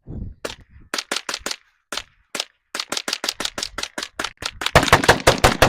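Gunshots at a shooting range: a few scattered shots at first, then a fast run of several shots a second from about halfway through, loudest near the end.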